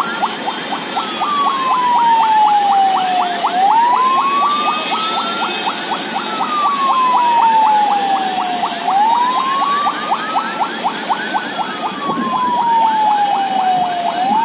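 A wailing siren rising and falling slowly, each full rise and fall taking about five seconds, repeated about three times, with a faint rapid pulse about four times a second beneath it.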